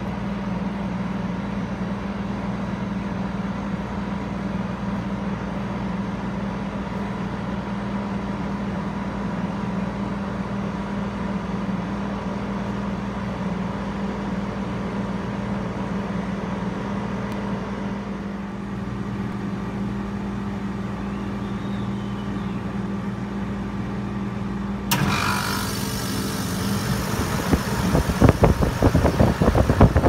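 Carrier outdoor air-conditioner condenser unit running with a steady, even hum. About 25 seconds in the sound changes suddenly, and near the end rushing air from a spinning condenser fan buffets the microphone in loud gusts.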